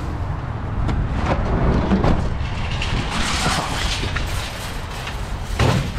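Wind buffeting the microphone with a steady low rumble. Plastic grocery bags rustle and things knock over it.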